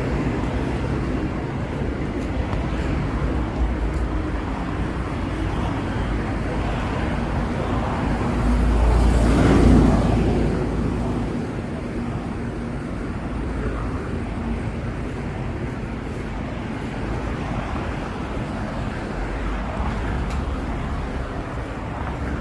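Street traffic noise, with one vehicle passing close by, growing louder and fading away in the middle.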